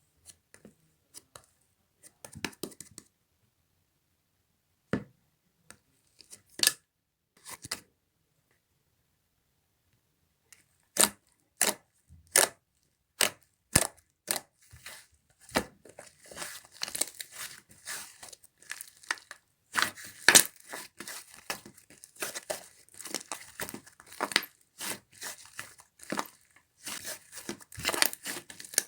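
Slime being squeezed and pressed by hand, making sticky clicks and air-bubble pops. They come singly at first, then turn into fast continuous crackling from about halfway through.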